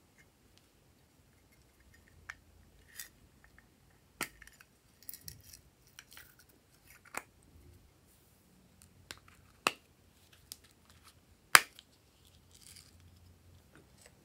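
Sparse sharp clicks and taps of small plastic containers being handled, with short light rustles between as sequins are tipped out; the sharpest click comes about three quarters of the way through.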